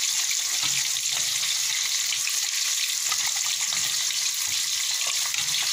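Two whole tilapia sizzling steadily as they fry in hot oil in a pan, with a spoon stirring and lightly knocking in a pot of thick corn soup beside it.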